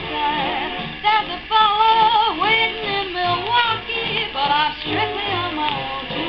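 A 1944 big-band vocal record playing on a 78 rpm shellac disc: a woman singing with vibrato over a dance orchestra.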